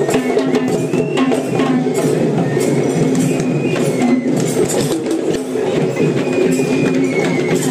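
Sri Lankan procession drums played by costumed drummers: a dense, fast, unbroken run of beats, with a thin high tone coming and going over it.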